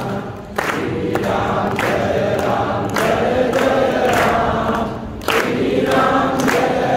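Hindu devotional song sung by a chorus of voices, with sharp drum strikes on some beats.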